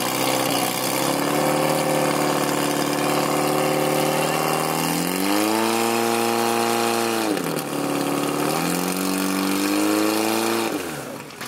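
Portable fire pump engine running at high revs while pumping water through the attack hoses. It revs higher about five seconds in, dips briefly, revs up again, then winds down and stops near the end.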